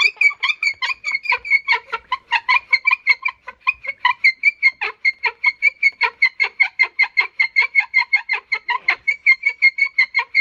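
Bow drill squeaking: the hazel spindle, spun back and forth by a paracord bow, squeaks against the wooden hearth board in a fast, even rhythm of about five squeaks a second, one with each stroke of the bow.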